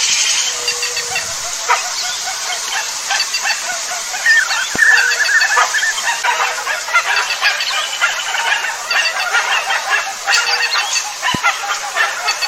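A chorus of wild birds calling over one another in many short chirps and calls, with a louder rapid warbling call about four and a half seconds in that lasts over a second.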